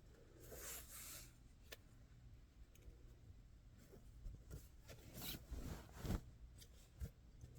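Faint rustling and rubbing of fabric being handled and lined up by hand, with a few soft bumps in the second half.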